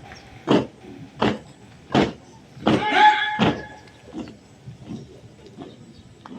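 A run of sharp knocks or stamps about three-quarters of a second apart. A short shouted voice rises over the fourth, and fainter knocks follow.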